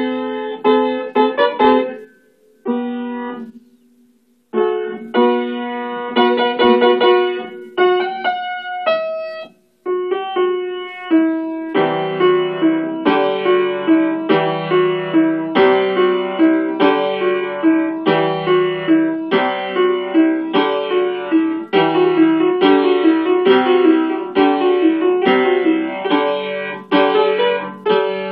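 Upright piano played by a child with both hands: a melody of separate notes with a couple of short pauses early on, then from about twelve seconds in a steady, repeating rhythm with low bass notes added under the tune.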